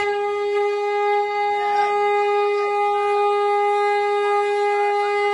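A conch shell (shankh) blown in one long, steady, unwavering note, held for about five seconds.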